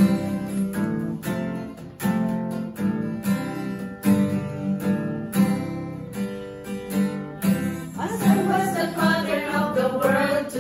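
Acoustic guitar strumming chords, then women's voices begin singing together with it about eight seconds in.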